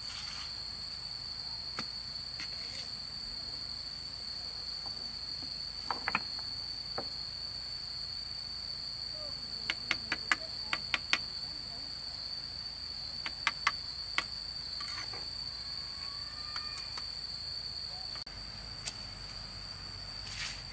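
Insects droning in one steady high-pitched tone, with scattered sharp clicks and knocks of stones being set into mortar, a quick cluster of them about halfway through.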